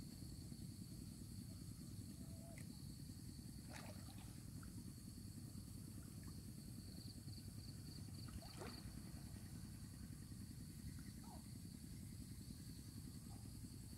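Near silence: a faint low rumble with a thin, steady high-pitched tone that pulses briefly in the middle, and a couple of faint clicks.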